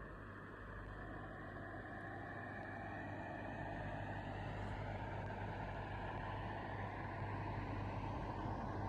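Steady running noise of a motor vehicle engine with a low hum, slowly growing louder.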